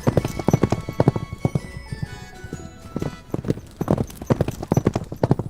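Background music with held tones over a run of quick knocks, several a second, in uneven clusters.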